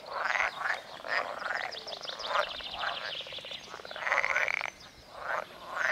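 A breeding chorus of many frogs croaking at once, their short calls overlapping, each frog calling differently, some calls a rapid rattling train of pulses. The loudest call comes about four seconds in.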